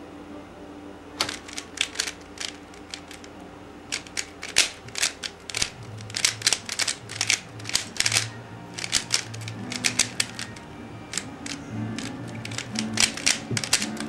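Dayan Guhong 3x3 speedcube being turned at solving speed: a fast, irregular clatter of plastic layer-turn clicks that starts about a second in and comes in quick flurries. Music plays softly underneath.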